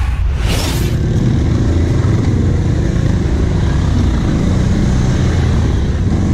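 Quad bike (ATV) engine running steadily under way, heard from on board while riding a sandy forest trail. A short swoosh sounds in the first second.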